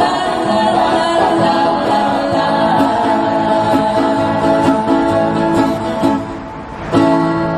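Music: singing with acoustic guitar accompaniment. The sound drops back briefly about six seconds in, then a strong chord comes back in about a second later.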